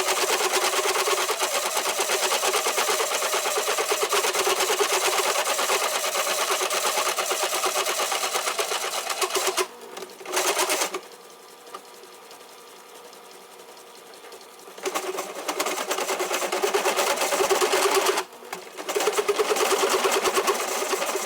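Hole being cut into a steel backhoe bucket pin with a power-driven tool: a rapid, rattling cutting noise in three spells. It stops about ten seconds in, leaving a quieter steady machine hum, then cuts again from about fifteen seconds, with a short break near the end.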